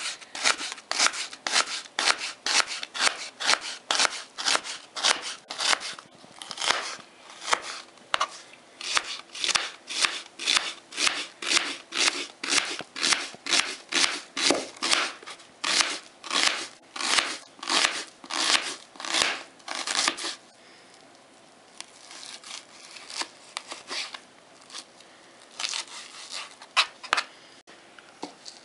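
Kitchen knife slicing an onion into thin half-rings on a plastic cutting board: a steady run of crisp chops about two to three a second, each blade stroke ending on the board. The chopping stops about twenty seconds in, leaving a few scattered knocks near the end.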